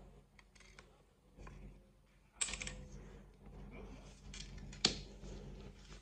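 Hard plastic clicks and scrapes of a Kyocera copier toner cartridge being handled and its end cap worked by hand, with two louder sharp clicks, about two and a half and five seconds in.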